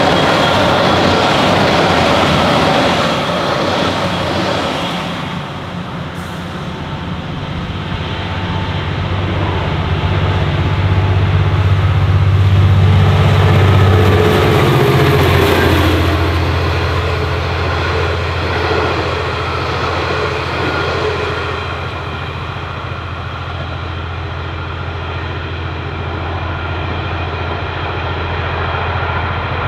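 An electric suburban train rumbles away, then a V/Line N class locomotive's EMD two-stroke diesel comes past at speed, its engine drone swelling and dropping in pitch about halfway through as it goes by. The passenger carriages follow, their wheels rolling over the track as the train draws away.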